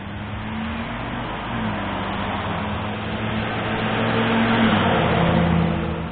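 A motor vehicle's engine running under acceleration. It grows louder to a peak about four to five seconds in, its pitch drops suddenly near five seconds in, and it then eases off.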